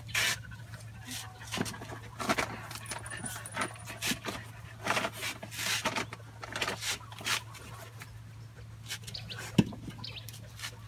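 Hollow concrete blocks being lifted and shifted: a string of scrapes and knocks, with one sharp knock near the end, over a steady low hum.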